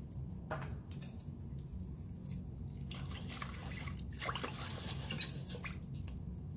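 Wooden chopsticks stirring chicken pieces and rice in water in a stainless steel electric pressure cooker pot: the liquid sloshes and splashes, loudest between about 3 and 5 seconds in, with a few sharp clicks of the chopsticks against the pot.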